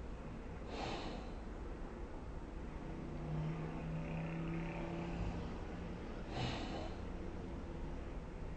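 A sleeping person snoring: a breathy breath about a second in, then a low, drawn-out buzzing snore through the middle, and another breathy breath about six and a half seconds in.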